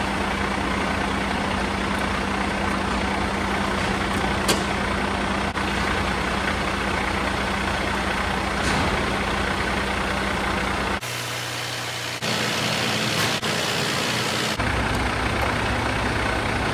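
Freightliner 114SD heavy truck's diesel engine idling steadily, with a constant low hum under the running noise. The sound changes abruptly for a few seconds in the middle, then returns.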